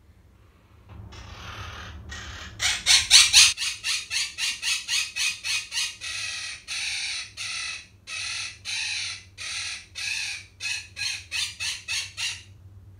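Pet parrot screeching: a long run of loud, harsh squawks, about three a second, with a few longer calls in the middle, loud enough to hurt the ears.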